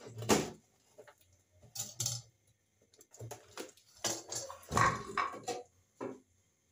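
Dish-rack parts clattering and knocking together as they are unpacked and handled, in a string of short clatters with brief pauses, the busiest about four to five seconds in.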